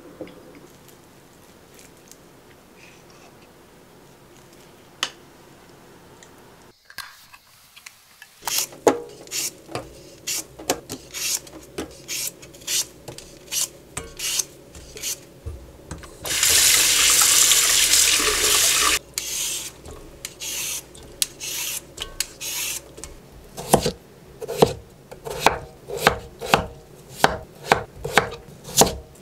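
Raw potatoes scraped with a Y-shaped vegetable peeler in short rasping strokes, about one a second. Midway, a few seconds of tap water run into a steel sink. Near the end, a kitchen knife chops peeled potatoes on a wooden cutting board, about two cuts a second.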